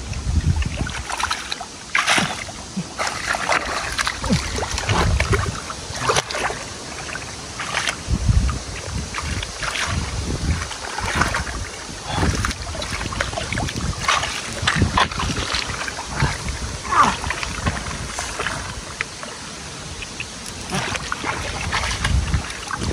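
Irregular splashing and sloshing of water, with uneven knocks and bursts of noise.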